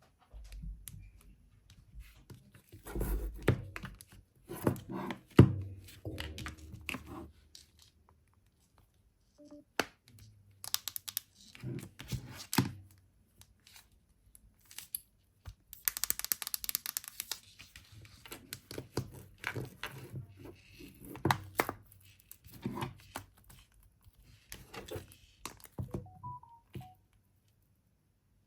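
Irregular handling noises: scattered taps, knocks and clicks with rustling and crinkling, including a longer burst of crinkling about sixteen seconds in.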